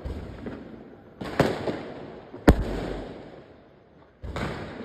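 Fireworks exploding: two sharp bangs about a second apart, each trailing off, and a softer burst near the end.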